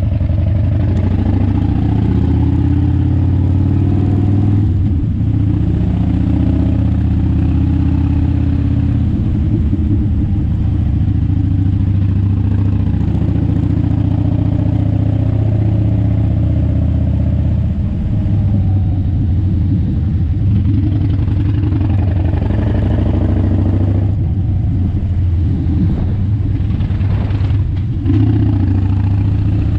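Motorcycle engine pulling up a winding mountain road, its pitch rising and falling again and again as the throttle opens and closes through the bends.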